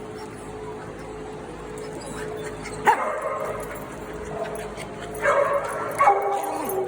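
Small dogs barking and yipping: a single sharp bark about three seconds in, then a run of high yips and barks near the end.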